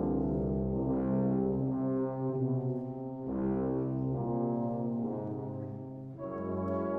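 Brass band playing slow, sustained chords over a held low bass, swelling twice, then moving to a fuller, brighter chord about six seconds in.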